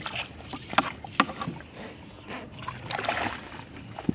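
Hooked tilapia thrashing at the surface while it is played on a pole line: irregular short splashes and knocks of water.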